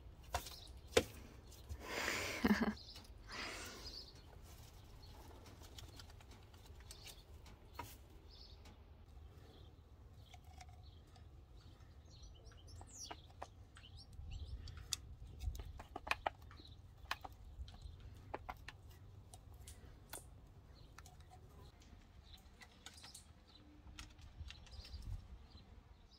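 Faint outdoor ambience: a steady low rumble of wind on the microphone with scattered light clicks and taps, and one brief louder, rougher sound about two seconds in.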